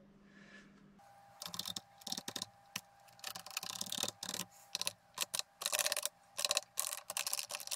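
Keys on a Canon V-20 MSX computer's Alps-switch keyboard being typed in quick, irregular clicks while the repaired keys are tested. A faint steady tone sits behind the clicks from about a second in.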